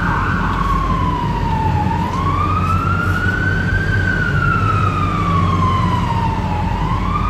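Emergency vehicle siren in a slow wail, its pitch falling and rising in long swells about every four to five seconds, over the steady rumble of a moving vehicle's engine and tyres heard from inside the cab.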